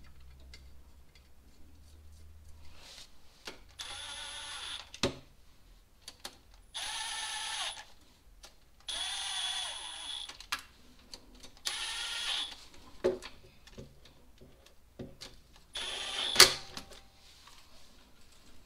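A small cordless power driver runs in five short bursts of about a second each, driving in screws, with sharp clicks between them and one loud click near the end. It is most likely fastening the rear main seal housing to the engine block.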